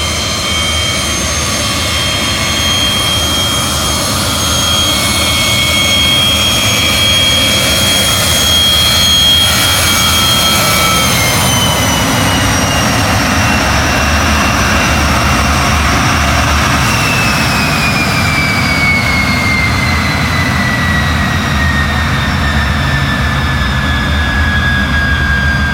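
MiG-17F's Klimov VK-1F turbojet running as the fighter taxis, a loud rushing noise with a high whine. The whine holds steady, then drops in pitch from about eleven seconds in and falls further from about seventeen seconds.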